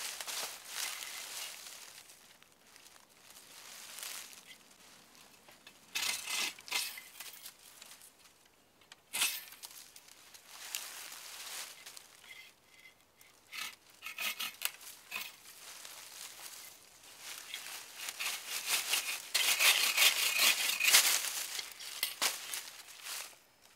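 Footsteps crunching and brush rustling in dry fallen leaves. Near the end, the loudest part: a folding hand saw cutting through a green sapling with quick back-and-forth strokes.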